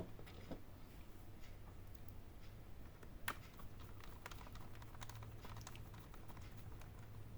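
Small irregular clicks and ticks of a screwdriver driving screws into an HP 14s laptop's plastic case, with one sharper click about three seconds in, over a low steady hum.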